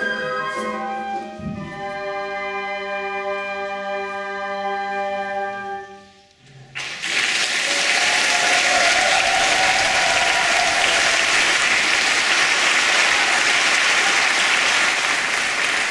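Wind band holding a sustained final chord, flutes on top, that dies away about six seconds in. Audience applause breaks out a moment later and continues to the end.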